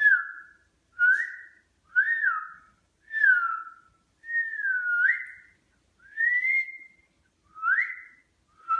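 A run of about eight high whistled notes, roughly one a second, each sliding up or down in pitch, with two held longer in the middle.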